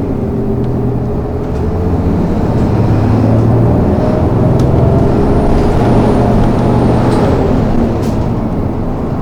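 City bus engine heard from inside the cabin while under way, a steady hum that rises slowly in pitch as the bus gathers speed.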